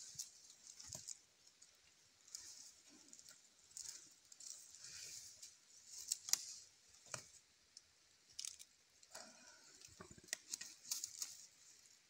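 Faint scattered clicks and rustles over a soft high hiss that comes and goes, with a few sharper knocks in the second half.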